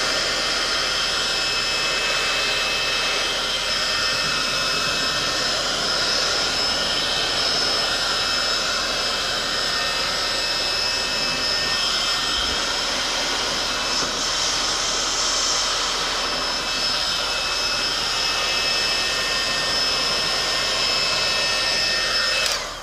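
Heat gun running steadily, a blowing rush with a thin high whine from its fan, until it cuts off suddenly near the end.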